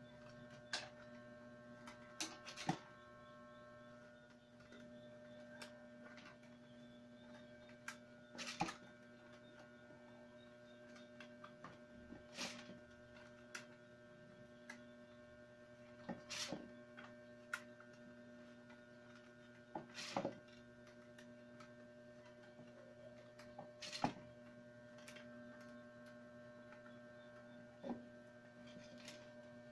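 Stiff, dry wicker strands clicking and rustling as they are woven by hand into a coiled round basket, with sharp clicks every few seconds over a steady electrical hum.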